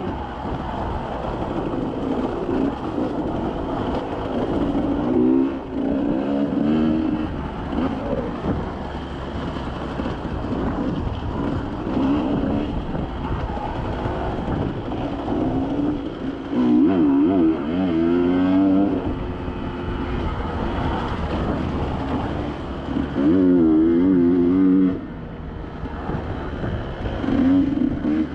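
Off-road vehicle engine running on a trail, revving up and down with the throttle. It is loudest in two surges, a little past the middle and again near the end.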